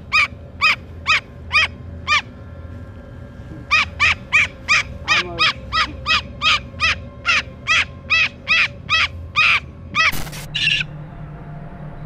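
Umbrella cockatoo giving short, evenly spaced calls, about two a second, with a pause after the first few; the people with it say she is very uncomfortable. About ten seconds in there is a harsher, noisier squawk.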